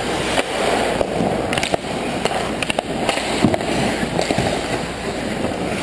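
Ice hockey play around the net: skate blades scraping and carving on the ice, with a string of sharp clacks from sticks and puck.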